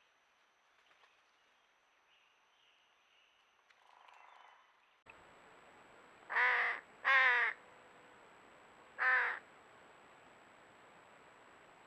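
Faint outdoor background, then after a cut a bird gives three loud, harsh caw-like calls, two close together and a third about two seconds later.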